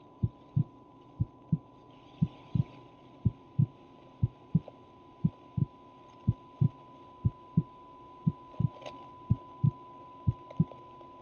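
Heartbeat sound effect: a steady, even lub-dub about once a second, over a thin, steady high tone.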